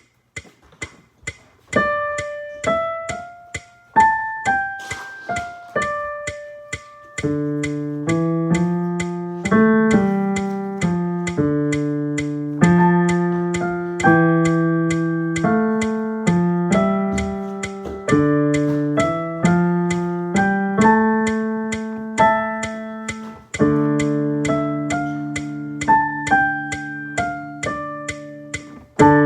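Piano played at a slow, even pace. First comes a single-note melody, then from about seven seconds in the melody sounds over lower held chords. Faint, evenly spaced ticks keep time throughout.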